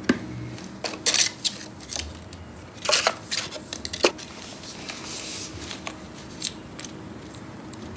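Scattered light clicks, knocks and small clatters of hard objects being handled, with the sharpest ones about a second in, around three seconds and at four seconds.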